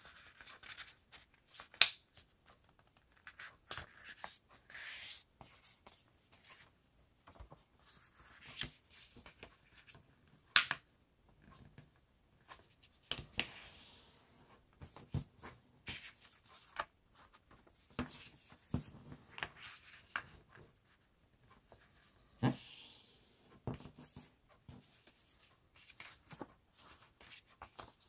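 A sheet of paper being folded and creased by hand on a table: scattered rustling and rubbing, with a few sharp snaps of the paper.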